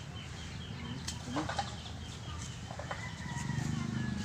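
Chickens clucking and small birds chirping in the background of a farmyard, with short high chirps and a faint low clucking near the end.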